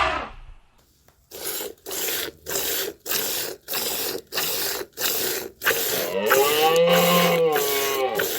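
A farm animal's rhythmic rasping breaths, nearly two a second, building into one long wavering pitched call about six seconds in.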